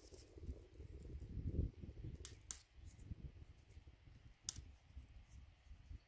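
Handling noise while loading a rifle by hand: a few light, sharp clicks, two close together a bit past two seconds in and one more near four and a half seconds, over a low rumble.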